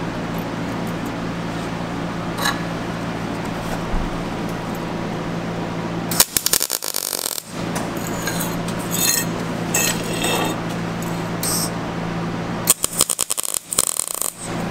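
MIG welder arc crackling on square steel tubing in two short bursts, the first about six seconds in and the second near the end, each lasting a second or so. A steady low hum runs underneath, with a few light metal clinks between the bursts.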